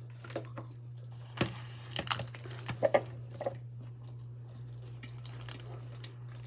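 Close-mic biting into and chewing a pepperoni roll: a few short wet smacks and crisp clicks, busiest in the first half, over a steady low hum.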